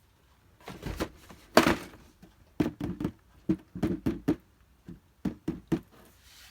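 A run of short knocks and thunks from objects being handled by hand, the loudest about a second and a half in, then a quicker series of light taps.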